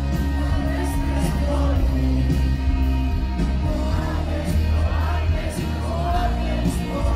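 Rock music with a singer's voice over drums and heavy bass.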